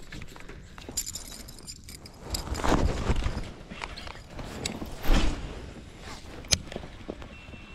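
Close handling noise from a fishing rod and baitcasting reel being worked by hand in a kayak: rustling with scattered clicks, two bouts of heavier rustling and low thumps, and one sharp click near the end.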